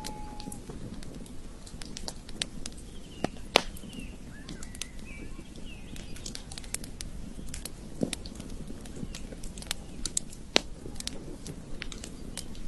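Campfire crackling with irregular sharp pops, a few louder ones about three and a half seconds in and near ten and a half seconds, over a steady low rumble of the burning wood. Birds chirp briefly in the background.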